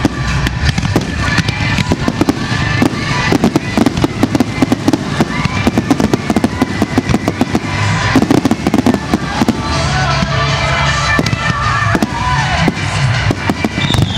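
Aerial fireworks shells bursting in quick succession, with many sharp bangs and crackles, thickest near the end, over music played along with the display.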